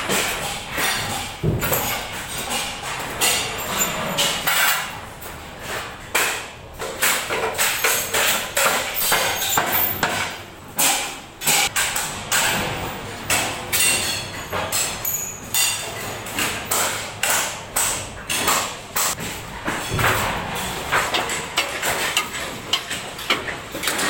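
Hammering on a building construction site: many sharp, irregularly spaced blows, sometimes several a second, with no pause.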